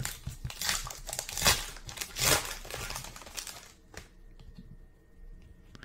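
Topps Heritage baseball card pack wrapper crinkling and tearing as it is ripped open by hand, the loudest rips about one and a half and two and a half seconds in. It goes quieter after about four seconds, with a single sharp click.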